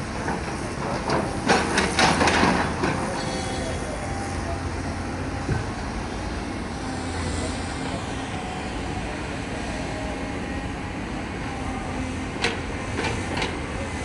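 Tracked hydraulic excavator's diesel engine running steadily as the arm works, with a burst of loud clattering about one to three seconds in and a few sharp knocks near the end.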